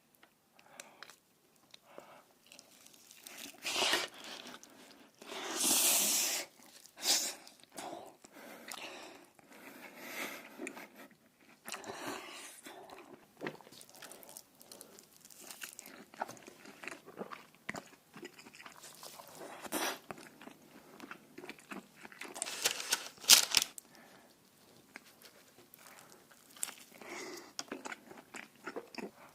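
Close-miked ASMR eating: irregular crunchy bites and chewing, with several louder bites spread through.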